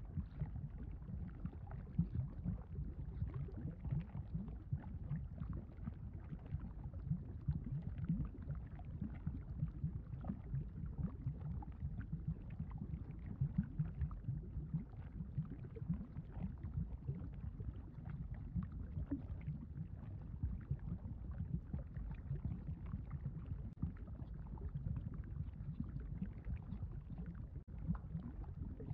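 Steady low rumble with a dense, flickering bubbling texture: a lava sound effect for magma flowing underground.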